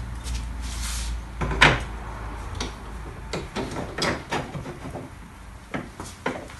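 Irregular clicks and knocks of metal alternator parts and tools being handled on a workbench, the loudest a bit over one and a half seconds in, over a low hum that fades out in the first two seconds.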